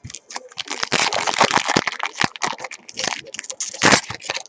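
Foil wrappers of Topps Mini Chrome card packs crinkling and tearing as packs are ripped open, a dense run of crackles with a louder tear near the end.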